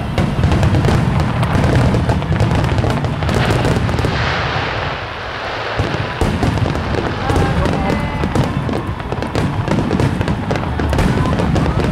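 Starmine fireworks barrage: many aerial shells launching and bursting in rapid, overlapping booms with crackle and a steady low rumble. It thins briefly about four seconds in, then builds again. Background music plays along with it.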